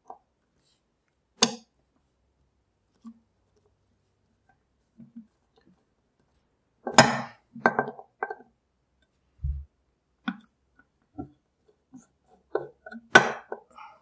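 Scattered metal clicks and clinks of a large screwdriver working screws in the steel mounting plate of a lock, in small clusters with the sharpest about seven and thirteen seconds in, and one dull thump about nine and a half seconds in.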